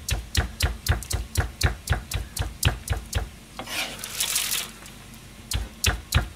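Large kitchen knife chopping minced chicken breast and chrysanthemum greens on a plastic cutting board, about four quick knocks a second. The chopping stops for about two seconds a little past halfway, then starts again near the end.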